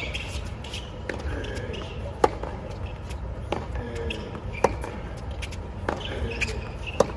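Tennis rally: racket strokes on the ball trading back and forth. The nearer player's shots are loud and sharp, about one every two and a half seconds, and the far player's shots fall fainter in between, over a murmur of voices.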